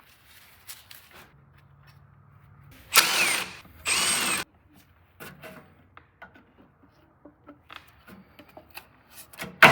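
Cordless power drill run in two short whirring bursts, about 3 and 4 seconds in, followed by scattered light clicks and clanks of metal parts being handled.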